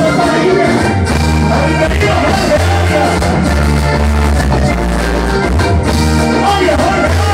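Live vallenato band playing loud: accordion, bass guitar and hand drum, with a man singing into a microphone at times.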